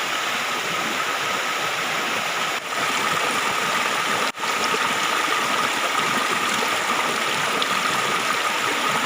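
Flowing water rushing steadily, a dense even hiss, with a thin steady high tone running through it. The sound briefly drops out twice, about two and a half and four seconds in.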